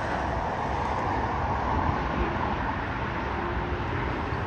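Spirit Airlines Airbus jet on the runway, a steady rushing jet-engine noise with a low rumble underneath.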